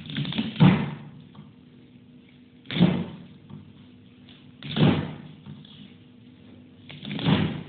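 Manual lever-operated chicken cutting machine chopping raw chicken: the handle is pulled down to drive the blade through the meat, four heavy chopping thuds about two seconds apart.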